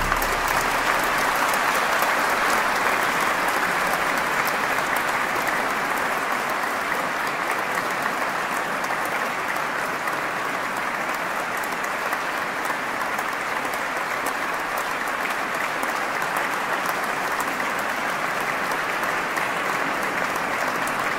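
Audience applauding: a long, steady round of clapping that eases off slightly toward the end.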